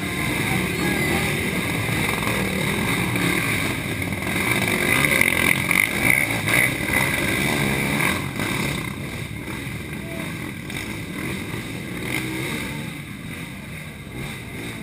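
Race quad (ATV) engine revving hard as it churns through a deep mud pit, loudest about halfway through and then easing off.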